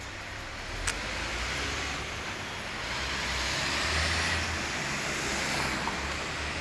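Street traffic, with a vehicle passing close by: its tyre and engine noise swells to a peak about midway and then eases. A single sharp click comes about a second in.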